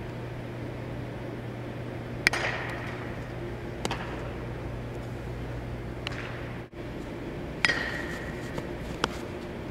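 Two sharp, ringing pings of a metal bat hitting ground balls, each followed a second or so later by the smaller pop of the ball into a leather glove, over a steady hum of a large indoor hall.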